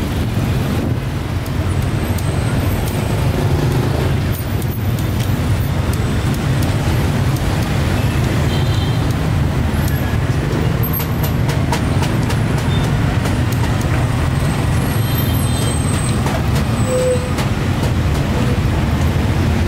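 Street traffic of motorbikes and auto-rickshaws running close by: a steady low engine rumble with road noise.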